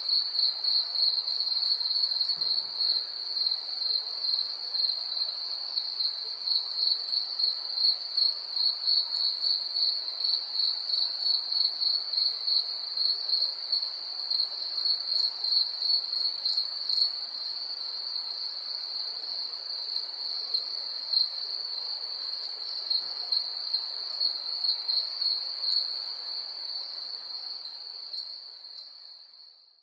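Crickets chirping in chorus: one steady, unbroken high trill with a quicker pulsing chirp above it and a soft hiss beneath. The sound fades out over the last few seconds.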